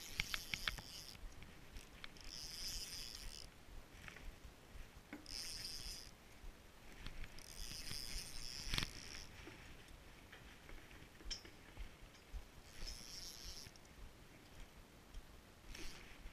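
Spinning reel cranked in short spurts: several whirring bursts about a second long each, with a few sharp clicks, the loudest near the middle.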